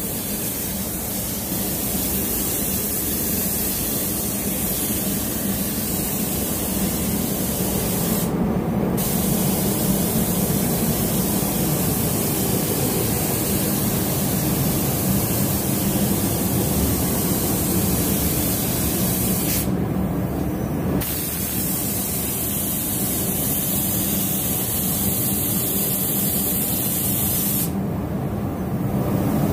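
Compressed-air spray gun hissing steadily as it sprays matte clear coat onto a car body. The top of the hiss cuts out briefly three times.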